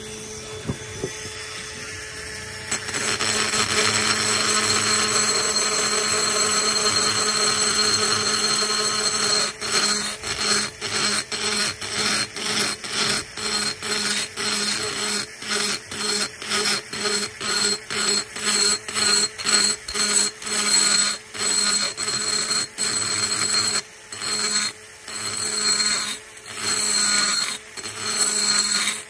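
Cordless rotary tool on a flex shaft running steadily, its carbide burr grinding the port of a Predator 212's aluminum cylinder head. The grinding comes in a few seconds in. From about a third of the way through it breaks into short repeated strokes, about two a second, as the burr is swept across the port and lifted off.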